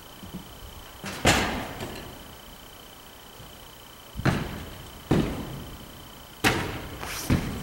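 Five sharp knocks and thuds, each with a short ringing tail, as a dry-tooling climber's ice tools and boots strike the artificial climbing wall and its holds.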